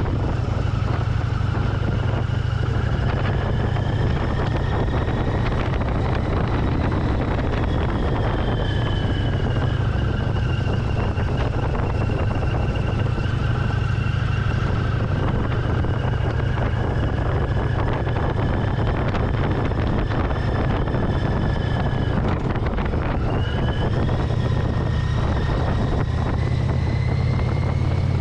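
Motorcycle under way, its engine rumbling steadily with wind rushing past the microphone. A thin whine drifts slowly up and down in pitch and dips sharply about two-thirds of the way through.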